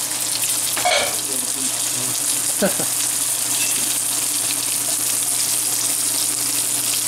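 Panko-breaded pollock fillets frying in shallow canola oil in a nonstick pan: a steady sizzling hiss.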